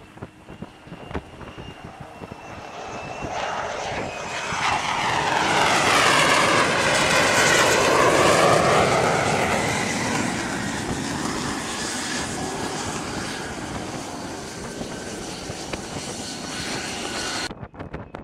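Fighter jet engine running as the jet comes in low over the carrier deck. It grows louder to a peak about halfway through, with a whine that falls in pitch as it passes, then slowly fades. The sound cuts off abruptly near the end.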